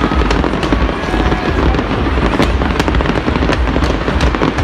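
New Year's Eve fireworks going off in a dense, continuous barrage: a steady low rumble of booms with many sharp pops and crackles layered on top.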